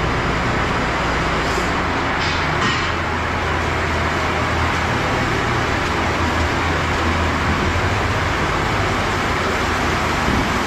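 Milking parlor's vacuum system in its wash cycle, sucking wash water and air through the milking units on their jetters: a steady rushing hiss over a low machine hum.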